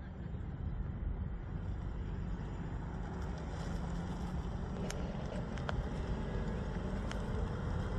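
C8 Corvette Stingray's mid-mounted V8 and exhaust running at low revs as the car pulls away and drives slowly past, a steady low rumble that grows a little louder in the second half.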